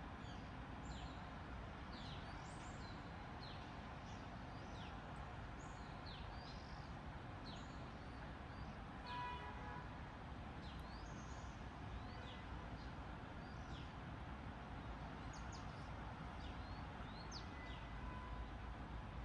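Small birds chirping over a steady low background rumble: many short, falling high chirps, several close together at times. A brief pitched tone about nine seconds in.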